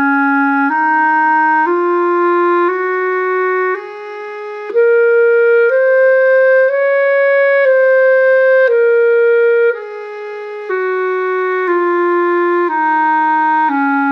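Solo clarinet playing the Eb major scale, one octave up and back down, about one note a second, each note running straight into the next. The Bb on the way up and on the way down comes out a little softer than the other notes.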